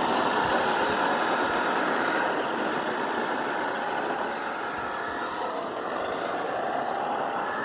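Remote-control Volkswagen Beetle model car driving on the road: the motor and gears whirring along with tyre noise, fading a little over the first few seconds, then steady.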